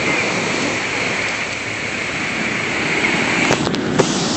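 Heavy hurricane surf: a loud, steady rush of crashing waves and water, with a few sharp knocks near the end.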